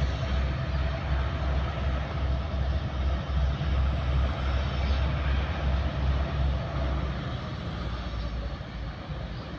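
Diesel locomotive of a coal train running, a deep pulsing rumble over a steady noise of the train, easing off about seven seconds in.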